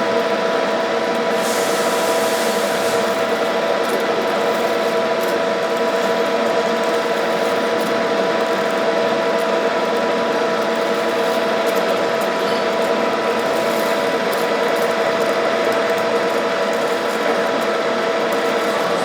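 A 1K62 screw-cutting lathe running steadily while machining D16 aluminium, its geared headstock giving a constant whine of several tones over the cutting noise. A brief hiss comes about a second and a half in.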